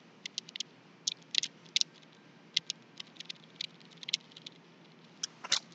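Plastic 15 puzzle clicking as it is handled: a scatter of short, sharp, irregular clicks and small rattles, some in quick little clusters.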